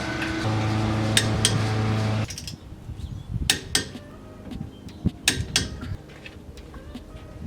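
Metal clinks and knocks of tools and wheel-spacer hardware being handled at the wheel hub, with a steady hum that cuts off about two seconds in.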